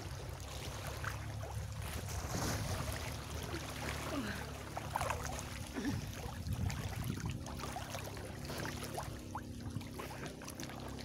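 Sea water sloshing and splashing around a person wading through shallow water, with a low steady hum underneath.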